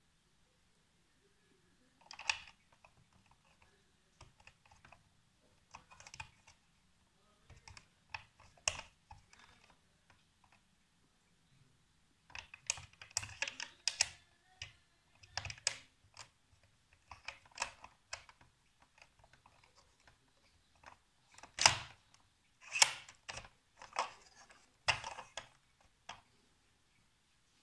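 Hard plastic parts of a Crash Dummies toy pickup truck being handled and clicked into place: scattered clicks and short rattles that come thicker in the second half, with a few sharper snaps.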